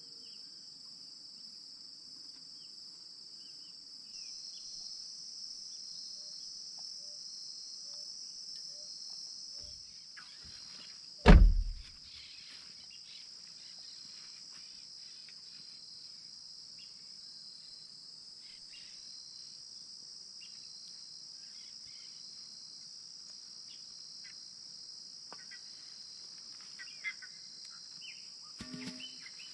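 Steady, high-pitched chorus of insects, with a single loud thump about eleven seconds in and a few faint knocks near the end.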